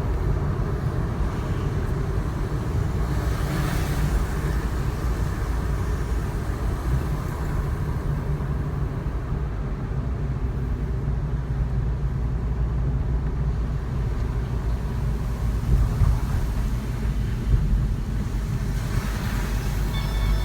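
Subaru WRX STI (VAB) driving at a steady pace, heard from inside the car: continuous low engine and road rumble with no change in pitch.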